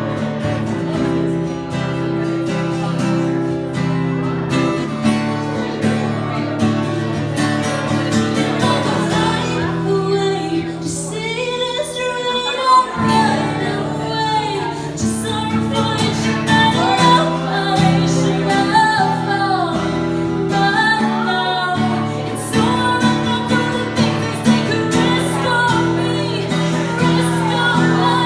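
Live music: a woman singing over a strummed acoustic guitar, with the guitar dropping out briefly about halfway through.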